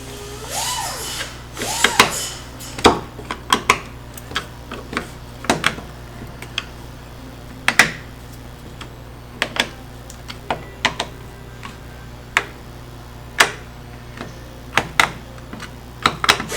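Irregular sharp clicks and taps of a screwdriver and screws against the plastic housing of a Milwaukee M18 leaf blower as its case is screwed back together, with a couple of brief squeaks near the start.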